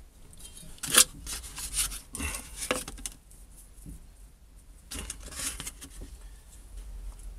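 Wooden stick scraping and scooping thick marble resin out of a metal tin, in two bouts of rubbing scrapes, with a sharp knock about a second in.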